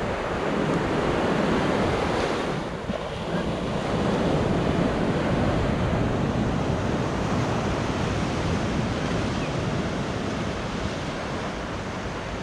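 Sea waves breaking and washing up on a sandy beach in a continuous surf roar, with wind buffeting the microphone.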